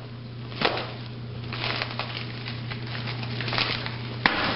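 A plastic bubble mailer being cut open and handled: crinkling and rustling with small snips and clicks, and a sharper click near the end.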